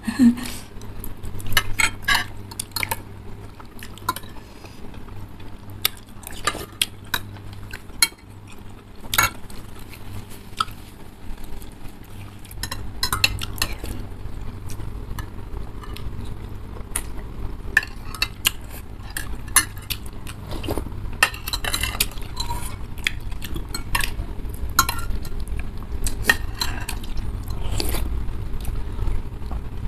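Metal spoons and forks clinking and scraping against ceramic bowls of noodle soup in many short, irregular clicks, with slurping of noodles and soup between them.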